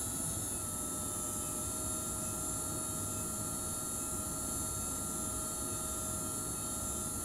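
High-speed otologic surgical drill running a 0.8 mm diamond burr with a steady whine as it grinds down the hydroxyapatite head of a titanium TORP prosthesis. The pitch dips slightly for about a second, starting about half a second in, then settles back.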